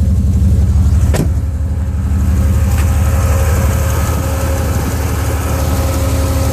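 Jeep Grand Cherokee 5.9 V8 idling steadily, with its electric radiator fan running on high speed, switched on by hand to bring the coolant temperature down. A single sharp click comes about a second in.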